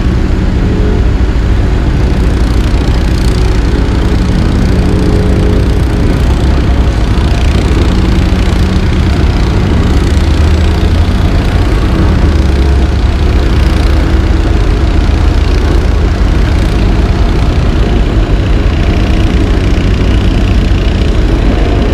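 Heavy diesel engines of a CAT AP655F asphalt paver and the dump truck feeding it, running steadily in a continuous low drone.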